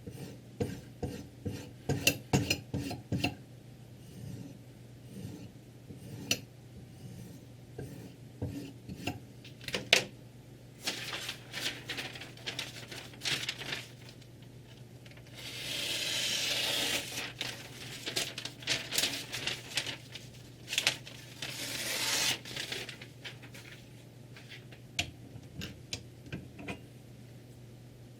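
Whetstone strokes rubbing along a kitchen knife blade clamped in a Ruixin Pro 3 guided sharpener. The strokes come in runs, with one longer steady stroke about halfway through. They are mixed with sharp metallic clicks and taps, thickest in the first few seconds.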